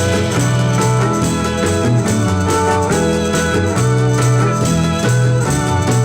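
Mid-1960s garage-rock record playing an instrumental passage: organ and electric guitar over bass and drums, with no singing.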